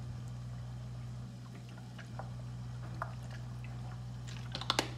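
Vinegar poured from a bottle onto sliced vegetables in a glass bowl: a faint dribbling splash over a steady low hum, with a few sharp clicks near the end.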